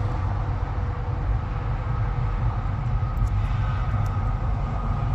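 Heavy truck diesel engine idling: a steady low rumble with a faint steady hum above it.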